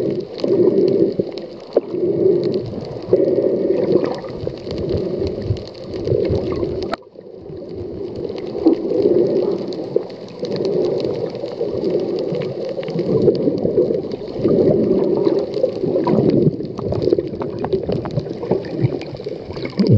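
Muffled underwater water noise heard through a submerged camera's housing, surging in uneven pulses every second or so, with a brief drop about seven seconds in.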